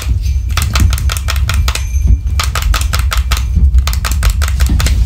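Rapid, fairly even clicking and tapping, about seven clicks a second, over a steady low rumble.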